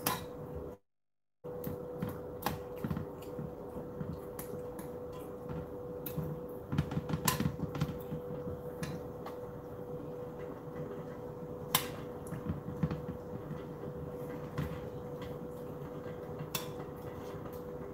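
Dishes and utensils being handled at a kitchen counter: occasional clinks and knocks over a steady hum. The sound cuts out briefly about a second in.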